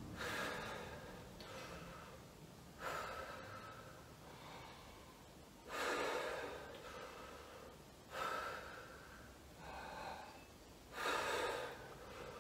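Two people taking deep breaths in and out through the open mouth, one after the other: a series of about six hisses of air, one every two to three seconds, each starting sharply and then fading.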